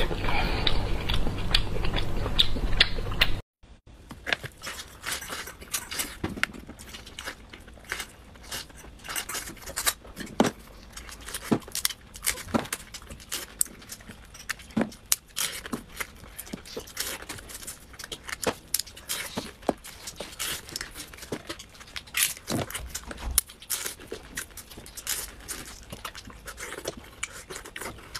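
Close-miked eating sounds. For about three and a half seconds there is loud biting and chewing into a saucy slab of pork belly. It stops abruptly, and a long run of short, sharp clicks and smacks follows as hands pull apart sauce-coated seafood and he chews.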